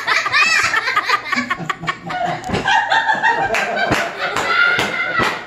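Several people laughing hard together, high-pitched laughter overlapping throughout.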